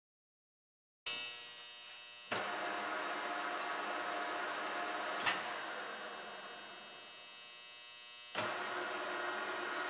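Nardini MS-1440E engine lathe's headstock running with the chuck spinning: a steady hum and whine of the three-phase motor and gearing. About five seconds in, a click, and the sound fades as the spindle coasts to a stop; near the end another click and it starts up again.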